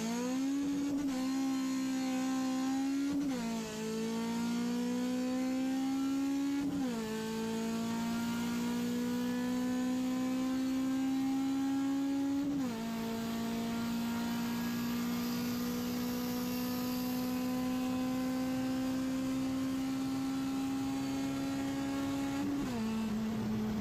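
Honda K20 four-cylinder engine in a Civic EG9 accelerating hard through the gears. The engine note climbs steadily in each gear and drops sharply at four upshifts: about three seconds in, about seven, about thirteen, and near the end. Each gear runs longer than the one before.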